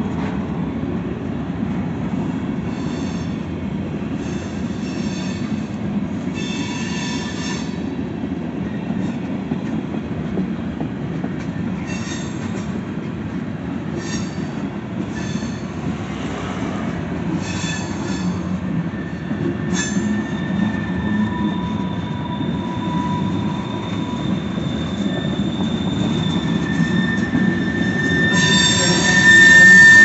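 Freight train cars rolling past: a steady rumble of wheels on rail, broken by short high squeals every few seconds. From about two-thirds of the way in, a steady high squeal sets in and grows much louder near the end.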